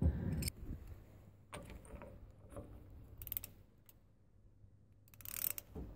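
Hand ratchet wrench clicking in a few short spells while loosening the bolts on a loader's hydraulic bucket cylinder.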